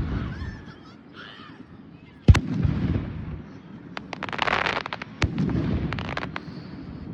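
Aerial fireworks. A loud bang comes about two seconds in and rolls off into a rumble, then a quick run of crackling pops, then another bang with its rumble just after five seconds.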